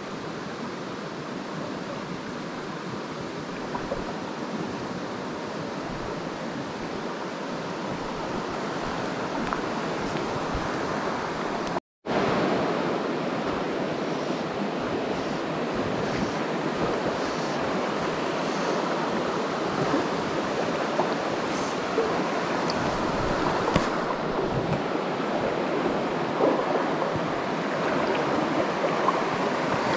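Steady rushing of river water, with no distinct events. It cuts out for a moment about twelve seconds in and comes back slightly louder.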